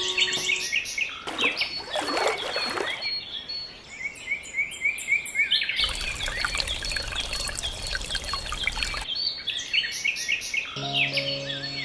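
Many birds chirping throughout, with water pouring and splashing twice, briefly about a second in and for about three seconds from the middle on; background music comes back near the end.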